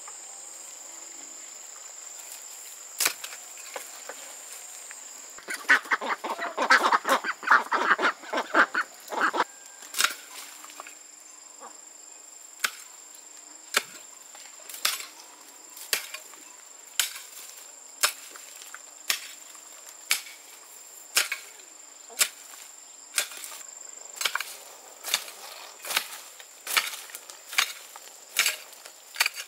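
Regular chopping strikes, about one a second and a little faster near the end, over a steady high insect trill. A few seconds in, a loud burst of rapid rasping lasts about four seconds.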